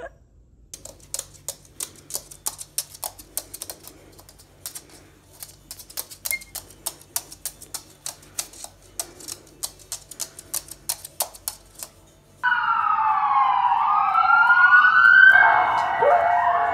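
Rapid, irregular clicking: a lovebird's claws tapping on a hard floor as it walks. About twelve seconds in, this gives way abruptly to emergency sirens wailing, several rising and falling tones overlapping.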